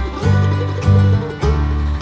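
Background music: a plucked-string tune over a bass line that steps every half second or so.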